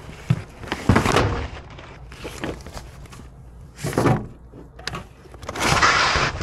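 Trash being shifted by hand inside a steel dumpster: a series of separate knocks and thuds, the loudest about a second in, then a longer rustling scrape near the end.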